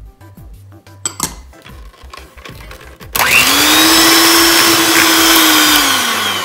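Three-speed electric hand mixer switched on about three seconds in, its motor whirring at a steady pitch as the beaters churn egg and vanilla into creamed butter and sugar. It winds down in pitch near the end. A single sharp knock sounds just after a second in.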